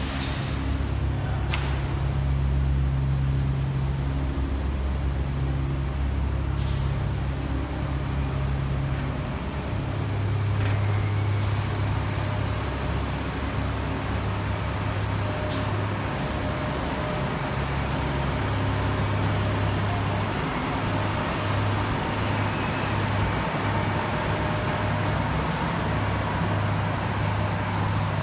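Construction-site machinery running with a steady low engine drone, whose pitch drops about ten seconds in, and a few faint clicks.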